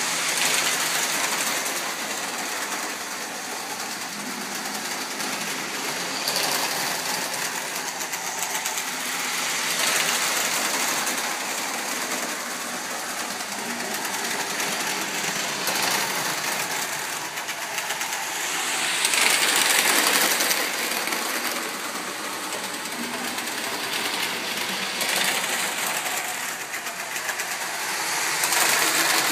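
Electric model train running on its track: a steady mechanical whir and rattle from the locomotive's motor and the wheels on the rails. It grows louder and softer several times and is loudest about two-thirds of the way through.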